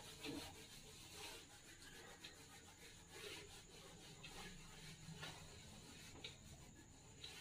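Handheld eraser wiping marker off a whiteboard: faint, repeated rubbing strokes.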